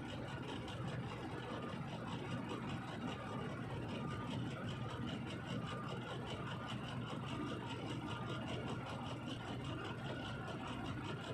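A vehicle engine running steadily, with no change in pitch or level.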